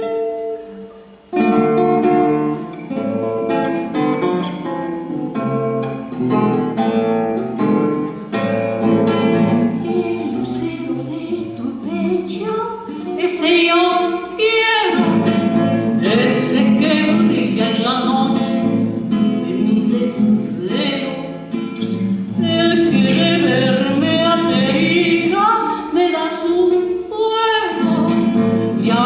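A woman singing a song and accompanying herself on a classical guitar. The guitar is heard alone at first, and her voice comes in partway through.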